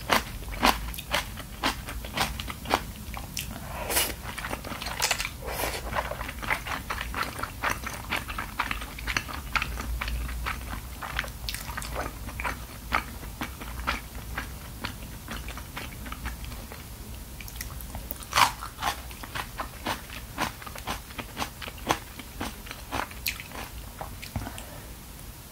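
Close-miked chewing of fish cake udon: a steady run of wet mouth clicks and squelches, with one louder bite or smack about two-thirds of the way through.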